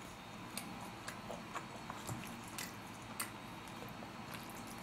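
Faint, scattered clicks and soft wet sounds of chopsticks working saucy noodles in a disposable plastic takeout container, with quiet chewing.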